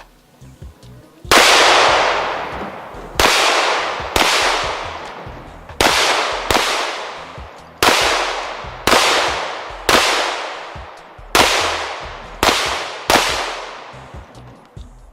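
Pistol shots in live fire: eleven single shots at an irregular pace, roughly a second apart, each sharp crack trailing off in a long echo.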